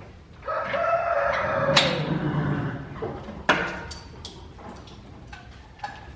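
A rooster crows once, a long call of about a second and a half, followed by a few sharp knocks.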